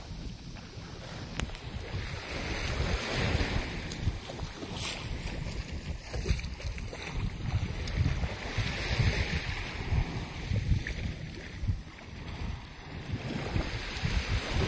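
Small waves washing gently over sand in shallow water at the shoreline, a soft hiss that swells about every six seconds, over a steady rumble of wind on the microphone.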